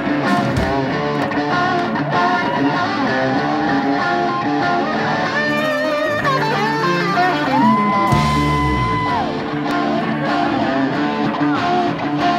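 Live band playing, led by electric guitar over drums, with a long held guitar note about eight seconds in.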